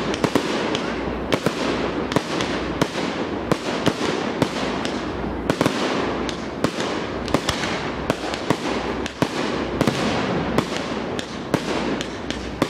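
Fireworks display in full flow: many sharp bangs, several a second, over a continuous dense crackling.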